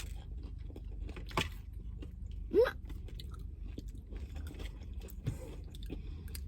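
Someone chewing a bite of soft cookie with a cereal topping: small irregular crunching and mouth clicks, with a brief murmur about two and a half seconds in.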